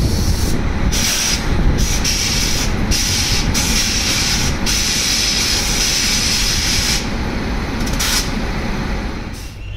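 Standing WAP-5 electric locomotive running with a steady mechanical rumble, while loud air hissing starts and stops abruptly several times.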